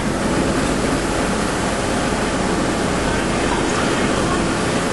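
Steady, even rushing noise of moving air, heard from inside a car parked in a Eurotunnel shuttle carriage.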